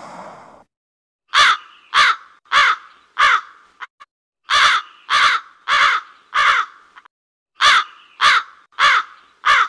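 A crow cawing: three runs of four harsh caws each, evenly spaced a little over half a second apart, with short pauses between the runs. In the first half-second the rush of a water splash dies away.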